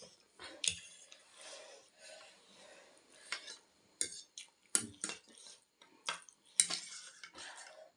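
Eating utensils clicking and scraping against a bowl of ramen while the noodles are eaten, with several sharp clinks in the second half.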